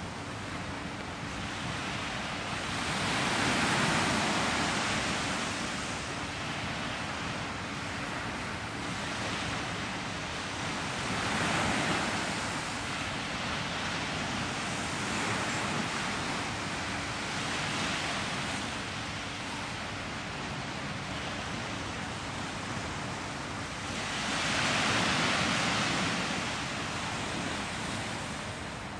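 Small waves breaking and washing up a sandy shore, a steady hiss of surf that swells three times, near the start, about halfway through and near the end.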